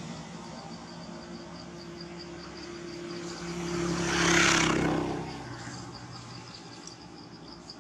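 A passing vehicle's engine, swelling to its loudest about halfway through and then fading. Under it, an insect chirps steadily in rapid, even pulses.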